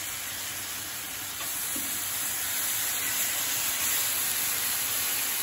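Marinated beef rib strips sizzling on a hot, unoiled cast-iron pan: a steady hiss that grows a little louder about a second and a half in, as more strips are laid on.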